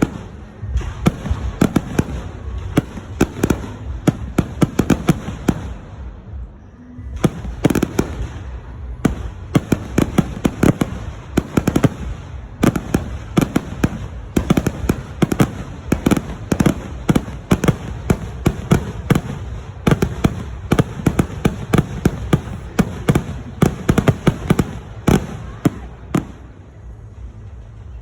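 Aerial fireworks bursting in a rapid barrage, many sharp bangs overlapping one another, with a short lull about six seconds in and a tailing-off near the end.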